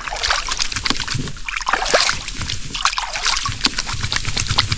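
Hands sloshing and rubbing together in lake water, being rinsed: a steady run of small splashes and drips.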